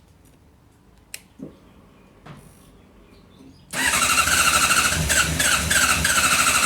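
A few light clicks, then about four seconds in the starter motor of a 2014 Honda CBR600RR's inline-four engine cranks it with a steady, pulsing churn and the engine does not catch: a hard start when hot, which the dealer calls a characteristic of the model.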